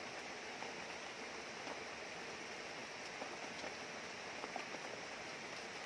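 Steady wash of rain and running river water, with a few faint scattered ticks.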